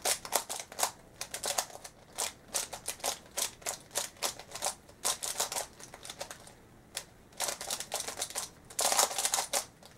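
Plastic stickerless speed cube being turned rapidly by hand: quick runs of clicking, clacking turns, with a short lull about six seconds in. The cube has just been lubricated with two drops of lube, which leaves its turning a little bit quieter.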